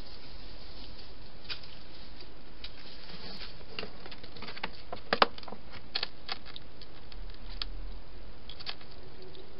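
Scattered light clicks and taps from animals moving in and around a clear plastic hedgehog feeding box, over a steady hiss; the loudest taps come about five seconds in.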